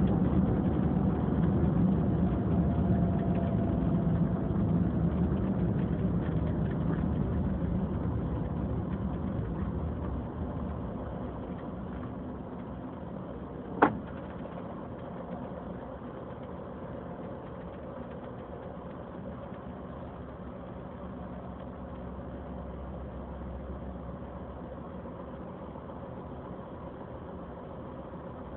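Car engine and road noise inside the cabin as the car slows to a stop, then the engine idling quietly at a standstill. A single sharp click about halfway through.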